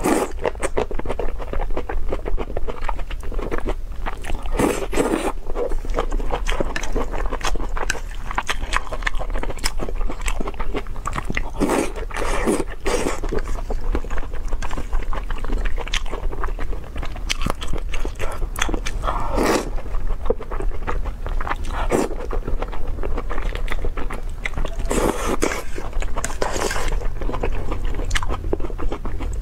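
Close-miked eating of spicy noodles: wet chewing and slurping, with louder slurps every few seconds.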